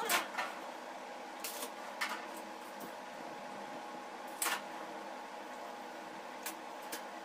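A handful of light, sharp metal clicks and taps as steel bar pieces are set and adjusted inside a welded grill gate frame, over a steady low hum.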